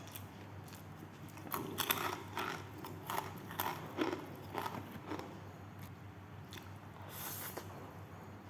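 A person biting and chewing food: a run of short, crackly chewing sounds between about one and a half and five seconds in, then a brief burst of chewing near the end.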